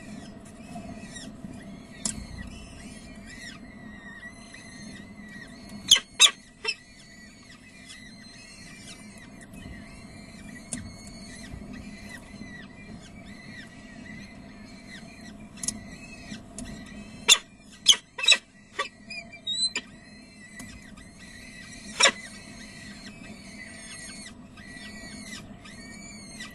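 Peregrine falcon chicks cheeping, thin high calls repeating about twice a second while they are fed. A few sharp, loud knocks cut in about a quarter of the way through, as a quick cluster about two-thirds through, and once more shortly after, over a steady low hum.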